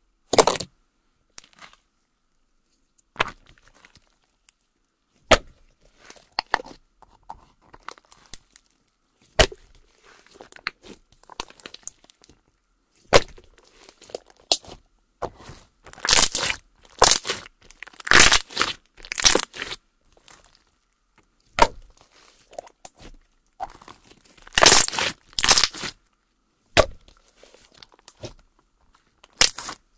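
A large fluffy white Nivea-cream slime being squeezed, stretched and folded by hand, giving irregular sharp crackling clicks and pops. They are sparse at first and come in dense runs in the second half.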